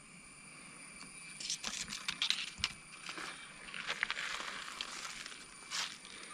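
Footsteps crunching through dry leaf litter and twigs on a forest floor, in two uneven bursts of crackling with a louder rustle near the end.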